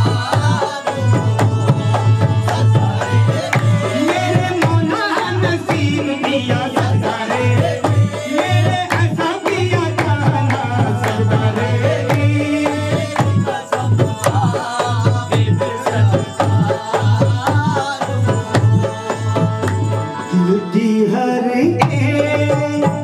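Qawwali music: harmonium melody over dholak drumming and rhythmic hand clapping, with a lead voice singing.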